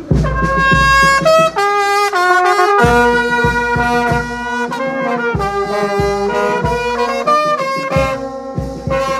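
Music: a brassy wind instrument plays a melody in held notes over low drum hits.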